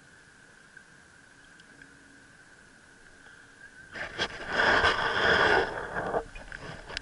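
Loud rustling and rubbing noise close to the microphone, the camera being handled, starting about four seconds in and lasting about two seconds. Before it there is only a faint steady high tone.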